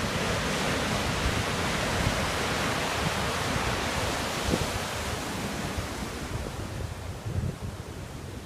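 Wind buffeting the microphone over the steady hiss of sea surf washing on the shore; the hiss eases off about six seconds in.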